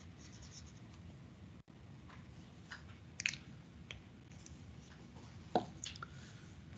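Quiet room with a few faint, short clicks and taps over low hiss; the loudest come about three seconds in and again near the end.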